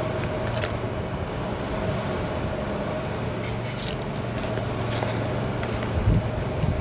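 Steady low mechanical hum with a constant drone, with a few faint ticks and a low thump near the end.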